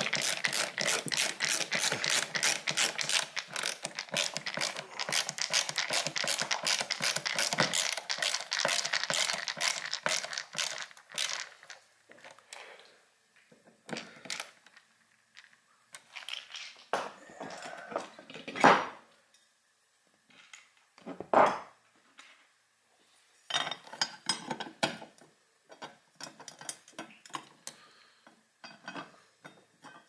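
A ratcheting screwdriver clicking rapidly and evenly as an electrical outlet's mounting screw is driven in, for about the first eleven seconds. After that come scattered clicks and a couple of sharper knocks from handling the tool and parts.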